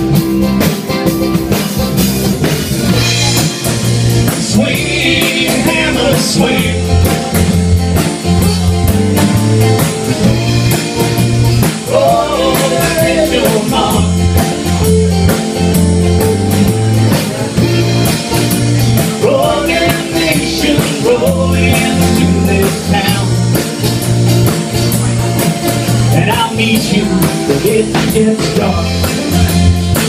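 Live rock band playing a full-band section: drum kit, electric bass and guitars together.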